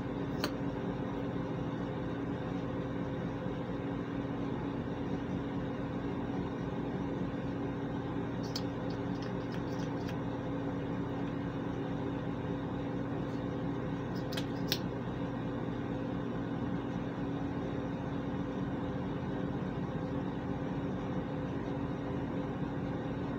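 Steady hum of a room ventilation fan, with a few faint clicks.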